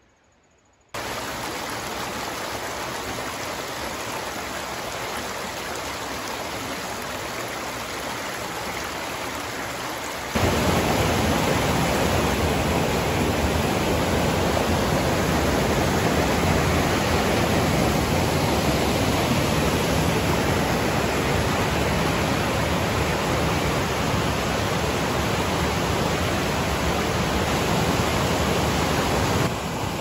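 Rushing water of a river waterfall and rapids, a steady, even noise. It starts about a second in and grows much louder about ten seconds in.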